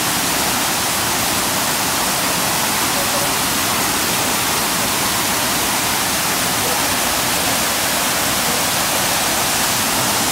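Waterfall: water pouring over rock ledges and splashing into the pool below in a steady, loud rush.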